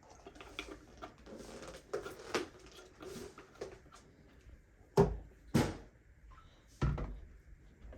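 Light clatter of things being handled, then three sharp knocks a little after halfway, the last more than a second after the first two.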